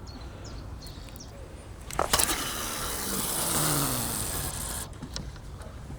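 A carp rod being cast: a sharp click about two seconds in, then the line hissing off the fixed-spool reel for nearly three seconds before it stops suddenly.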